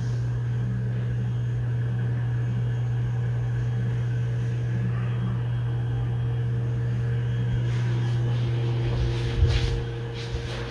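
Ventisol Fênix ceiling fan running with a steady low motor hum. About nine and a half seconds in there is a brief knock, and the hum then gets quieter.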